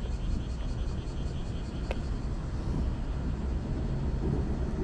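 Steady low outdoor rumble with a faint, fast, even ticking through the first few seconds and one sharp click about two seconds in.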